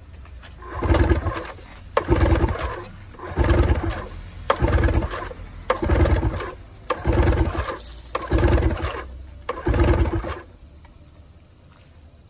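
A 2007 Yamaha 25 hp two-cylinder two-stroke outboard being cranked by its pull-start recoil cord eight times, about one pull every 1.2 seconds, the engine turning over without firing because the kill lanyard is off. This is a compression test on the top cylinder at wide-open throttle; the cylinder reads 120 psi, which is excellent for this motor.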